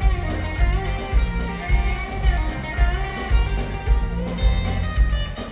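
Live band playing an upbeat soul song, with drum kit, bass, electric guitars and saxophones over a steady beat.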